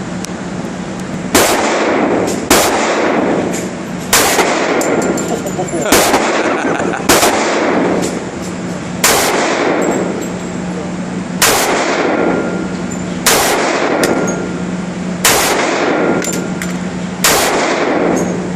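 .45-calibre gun fired about ten times at an uneven pace, one to two and a half seconds between shots. Each shot echoes and dies away over about a second, over a steady low hum.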